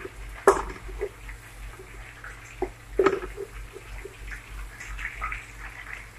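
Wooden spatula stirring and scraping a frying onion-and-spice masala around the base of a large aluminium pot, with irregular scrapes and knocks; two sharper knocks come about half a second in and about three seconds in.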